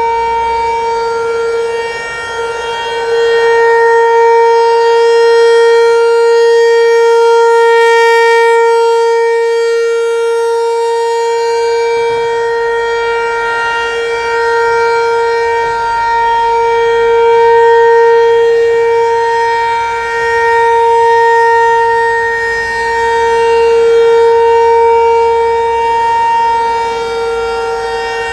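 Federal Signal Equinox outdoor warning siren sounding its steady alert signal, one unwavering tone near 465 Hz. The loudness swells and fades every few seconds as the siren head slowly rotates.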